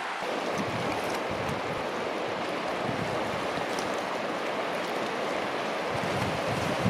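Colorado River water rushing steadily, with irregular gusts of wind buffeting the microphone.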